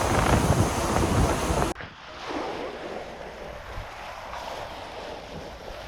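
Wind buffeting the microphone over sea noise from a ferry deck, cutting off abruptly a little under two seconds in to a much quieter, steady background.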